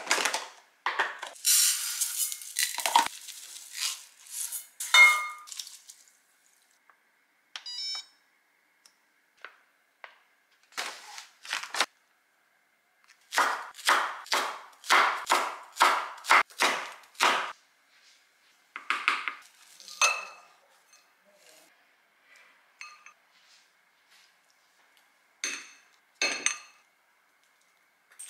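Kitchen prep sounds: clinks of dishes and utensils in the first few seconds, then a knife chopping green onion on a wooden cutting board in a run of about eight even strokes, roughly two a second, near the middle. Two ringing clinks come near the end.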